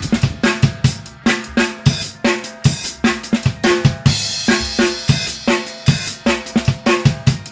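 Upbeat background music with a driving drum-kit beat: bass drum, snare and cymbals under pitched instruments.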